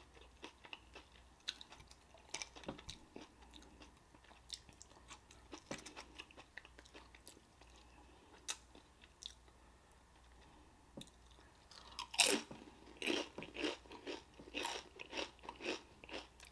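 Close-miked chewing and crunching of a pickled pepperoncini pepper dipped in sauce, with soft wet mouth clicks. About twelve seconds in, a louder bite is followed by steady chewing strokes, about three a second.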